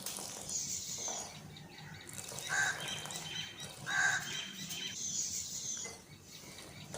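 Birds calling: a few short calls a second or two apart, with higher chirps between them.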